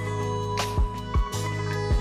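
Background music: sustained synth or instrument tones over a steady beat of low drum thumps.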